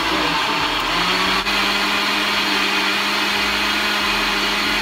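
Blender running steadily, blending a smoothie. A steady motor hum sits under the churning noise and settles in about a second in.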